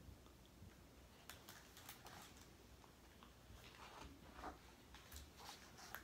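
Near silence with faint paper rustles and soft clicks as a page of a hardcover picture book is turned, in two short spells a second or two apart.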